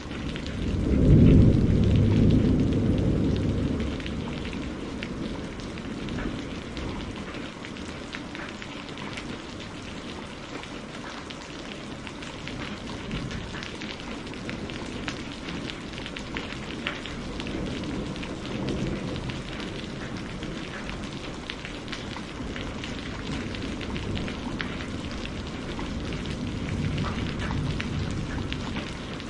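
Steady rain falling, with many individual drops ticking. A loud low rumble of thunder swells about a second in and dies away over a few seconds, and fainter rumbles come later.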